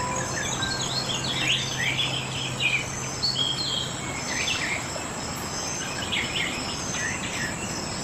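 Small songbirds chirping and twittering in short, quick notes over a steady background hiss of insects.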